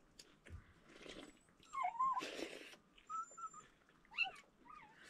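A dog whimpering and whining in a series of short, high, wavering cries, the strongest about two seconds in, with a brief rustling noise just after it.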